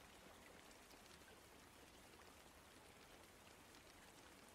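Very faint rain: an even hiss with scattered small drop ticks.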